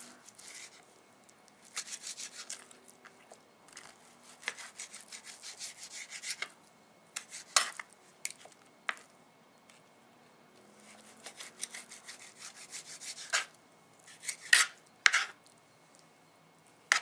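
Kitchen knife slicing food on a cutting board in runs of quick back-and-forth strokes, broken by a few sharper knocks of the blade on the board.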